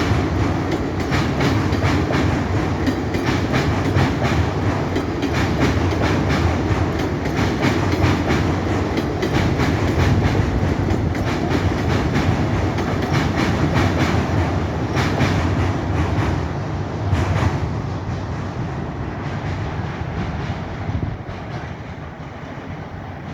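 Train crossing a railway bridge: a steady rumble with a rapid clickety-clack of wheels over the rail joints. It thins out and fades over the last several seconds as the train passes.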